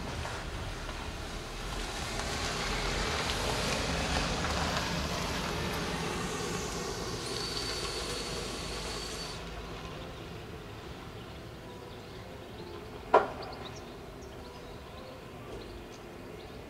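A vehicle passes by, its noise swelling and fading over several seconds, with a thin high whine near the end of the pass. About thirteen seconds in comes a single sharp knock.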